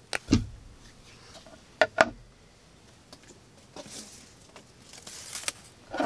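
The curved D2 steel blade of a Brous Blades Enforcer karambit cutting through twine: a couple of quick snaps right at the start and two sharp clicks about two seconds in as the cord is pulled across the edge and parts. After that comes faint rustling with a few light clicks as the knife is handled and set down on a wooden board.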